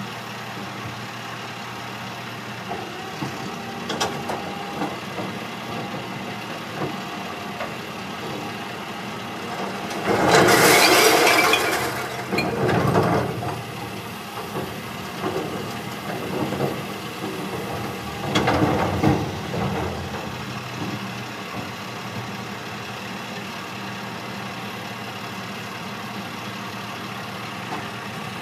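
Recycling truck's diesel engine idling while bins are emptied into its side hopper and the hopper is hydraulically raised to dump. Two loud, noisy stretches of the load crashing into the body stand out, about ten seconds in and again near twenty seconds.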